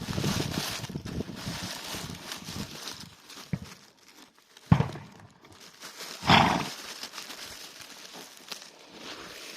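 An animal chewing grass with a crunching sound, then two sharp blows of air out through the nose: a short one a little before halfway and a longer one about a second and a half later.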